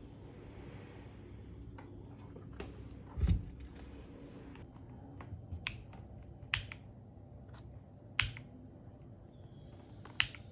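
Scattered single clicks and taps from a Kiiboom Moonshadow 81 mechanical keyboard being handled or pressed key by key, with a heavier knock about three seconds in.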